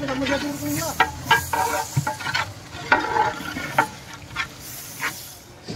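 A long metal ladle stirring and scraping thick frying biryani masala in a large metal cooking pot. The ladle knocks against the pot in an irregular run of clanks, over a steady sizzle of the oil.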